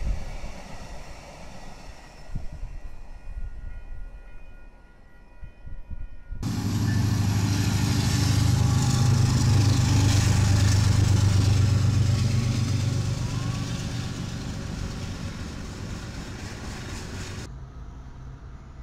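A train rumbling as it recedes, then an abrupt cut at about six seconds to a Union Pacific diesel locomotive passing close by: a loud, steady low engine drone over wheel and rail noise, slowly fading. Near the end another abrupt cut to a quieter, steady locomotive hum.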